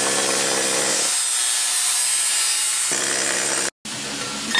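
Cordless angle grinder grinding down the edge of a steel truss plate, a harsh steady grind that stops abruptly about three-quarters of the way through.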